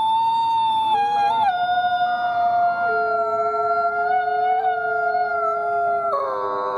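Wolves howling together in a chorus: several long, held howls at different pitches overlap. A higher howl joins about a second in, and a lower one near three seconds.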